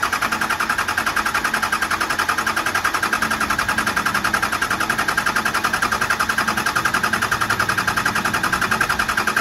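5.9 12-valve Cummins turbo diesel being cranked over by its starter, with an even beat of about ten pulses a second that does not catch and fire. This is the first start attempt after the stuck fuel rack in the P7100 injection pump was freed.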